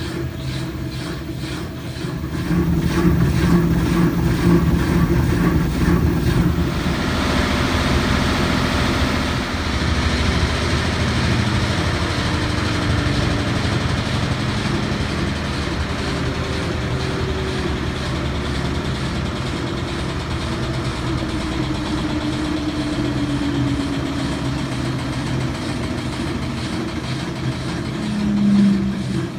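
LG WT7800 top-load washer's drum spinning at speed in the final spin of a tub-clean cycle: a steady motor whir and rushing, stepping up in level about two seconds in and gaining a brighter rushing about seven seconds in.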